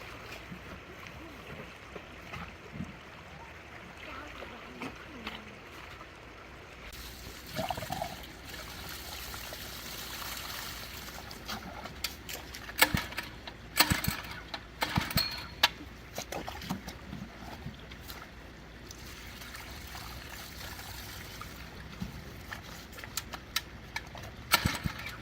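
Shallow stream water running and trickling, with scattered splashes and knocks. The splashes come thickest about halfway through and again near the end.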